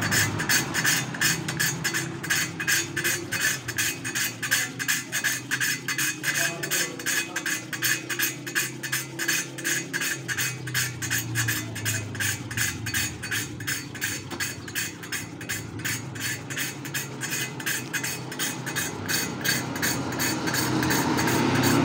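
A poppet valve being hand-lapped against its seat in an air-cooled motorcycle cylinder head: a gritty metal-on-metal rasping from the lapping paste, repeating rhythmically several strokes a second as the valve is twisted back and forth.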